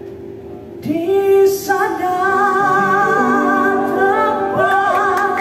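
A woman singing into a microphone, long held notes with vibrato, over electronic keyboard chords. The keyboard plays alone at first and the voice comes in about a second in.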